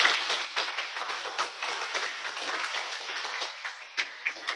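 Audience applauding, the clapping loudest at the start and slowly thinning out, with a few last claps near the end.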